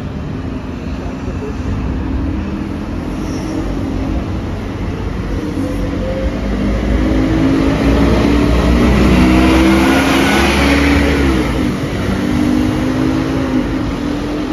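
A Scania OmniCity double-decker bus's diesel engine drives past close by, the engine note rising and falling as it pulls through. It gets louder toward the middle and is loudest as the bus passes, about eight to eleven seconds in, with road traffic under it.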